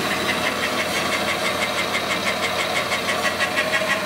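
Warco Super Mini Lathe running unloaded at high speed, with its brushless motor and chuck spinning. It makes a steady hum with a rapid, even rattle of about six ticks a second over it, and is noisy overall.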